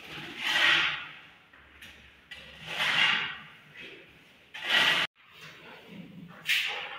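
Hand plastering: a trowel scraping and smoothing wet cement plaster across a wall in four separate strokes, roughly two seconds apart.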